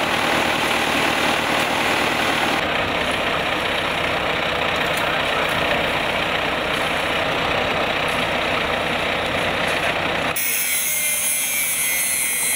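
Concrete mixer truck's engine running steadily during the concrete pour. About ten seconds in this gives way to an angle grinder's high whine as it cuts the steel rebar mesh.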